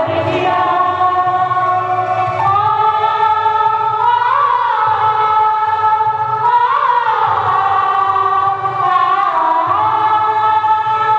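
Choir singing a slow piece in long held notes that step from one pitch to the next, with a wavering swell on a few of the notes.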